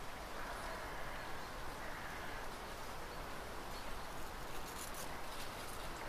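Quiet outdoor nature ambience: a steady background hiss with a few faint animal calls, most likely distant birds, in the first half.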